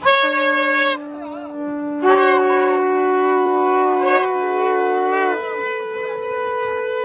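Several conch shells blown together in long, steady, overlapping notes. One sounds abruptly at the start, others join about two seconds in, and a single note holds on after the rest stop.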